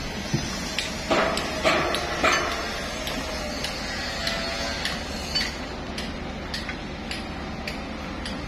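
Construction-site work noise: irregular sharp metal clicks and knocks over a steady low hum, with a cluster of louder knocks about a second in.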